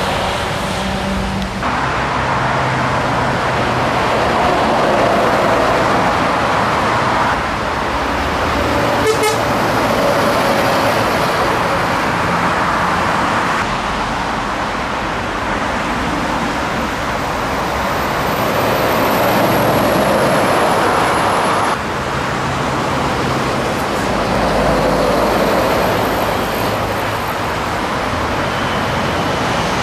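Scania truck driving on the road: steady engine and road noise, with the engine note changing abruptly a few times.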